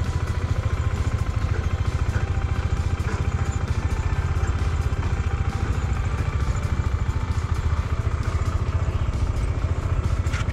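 KTM 390 Adventure's single-cylinder engine running at steady revs as the motorcycle is ridden, with no rise or fall in engine speed.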